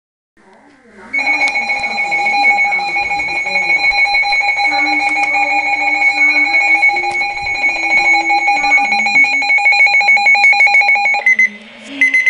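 Weather radio alert tone: a loud, steady electronic alarm with two pitches sounding for about ten seconds, then breaking into a few short beeps near the end. It signals an incoming Environment Canada weather bulletin.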